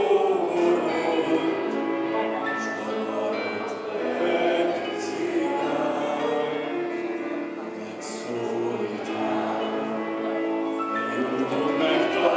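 A man singing a song into a handheld microphone, holding long notes.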